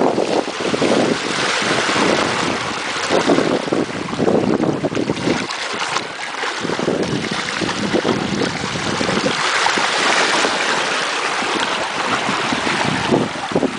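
Water rushing and splashing along a sailboat's hull as it moves fast through choppy sea, with wind gusting on the microphone.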